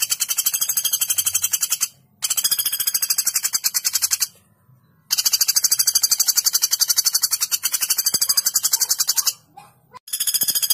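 Common flameback woodpecker calling in long, sharp rattling trills of rapid repeated notes. Four trill bouts are heard, the longest about four seconds, each separated by a brief pause.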